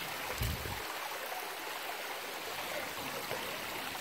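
Shallow creek water running and trickling steadily over rocks, with a brief low thump about half a second in.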